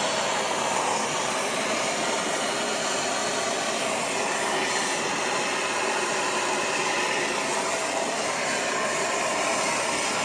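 Soldering torch flame burning with a steady hiss while it heats a 2-inch copper pipe joint.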